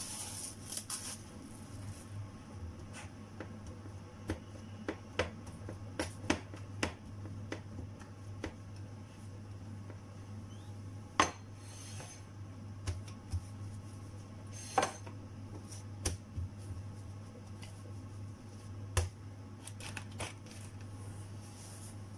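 Kitchen handling sounds: cling film crinkling as it is peeled off a glass bowl of dough, then scattered light clicks and knocks as the glass bowl is moved on the countertop and the dough is handled, with two sharper knocks about halfway through. A steady low hum sits underneath.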